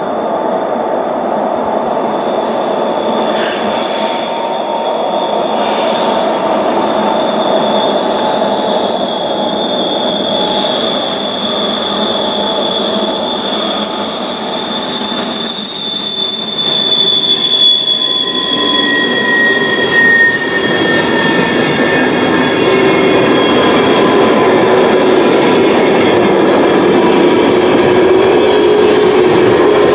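Freight train hauled by a pair of ÖBB class 1144 electric locomotives, its wheels squealing on snowy, slippery rails: several high squeal tones that slowly slide in pitch over a steady rolling rumble, growing louder as the train approaches. The squeal comes from the locomotives' wheels slipping continuously (macro-slip) and from the fixed-wheelbase wagons' flanges climbing the rail in tight curves, with lower-pitched squeals joining about two-thirds of the way through.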